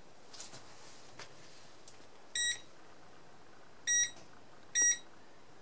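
MILESEEY MC616 multimeter beeping: three short beeps of one high pitch, the last two close together.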